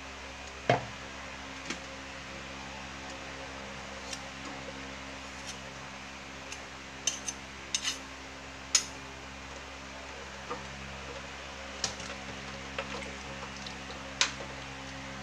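Metal spoon clinking and knocking against a stainless steel pot and a glass jar as thick peanut butter is scooped into the sauce, a dozen or so scattered strikes over a steady low hum.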